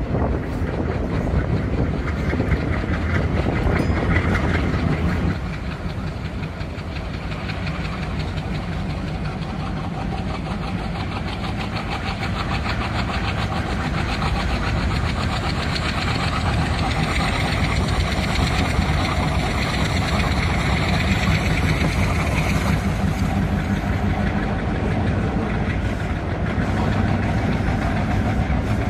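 HO-scale Indian Railways model trains running on a layout: a continuous locomotive engine rumble with rattling wheel-on-track noise. The sound drops a little about five seconds in, and a faint high whine rises about halfway through.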